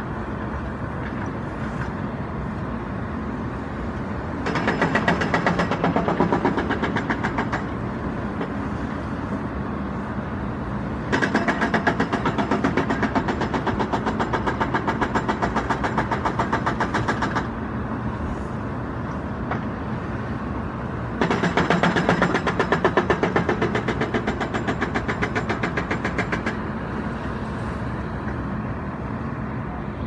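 Jackhammer hammering rapidly and without pause on a construction site, growing louder in three spells of several seconds each.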